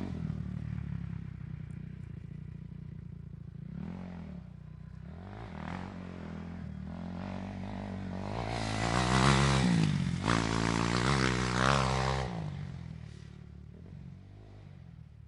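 Motorcycle engine revving: several rises and falls in pitch over a steady running note, the loudest revs near the middle, then the sound fades away near the end.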